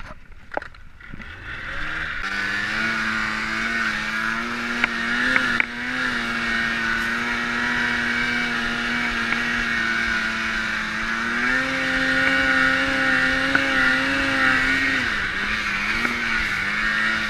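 Snowmobile engine revving up about a second in, then running hard at high revs with a steady whine, its pitch stepping up and down a few times as the throttle changes.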